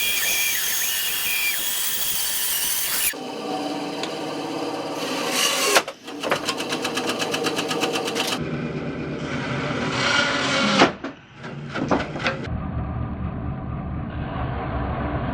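Small, underpowered benchtop bandsaw running and cutting through a wooden block, in several short stretches. A sharp knock comes about six seconds in and another near eleven seconds, each with a brief drop in the saw sound.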